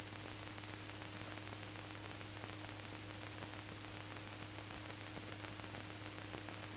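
Faint steady hiss with a low hum and light crackle: the surface noise of a 16mm film print's soundtrack, with no programme sound on it.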